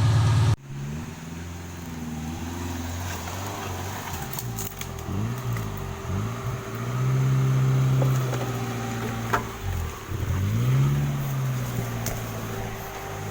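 Off-road 4x4's engine revving up and down again and again, its pitch rising and falling, with a couple of sharp knocks. A louder engine sound cuts off abruptly just after the start.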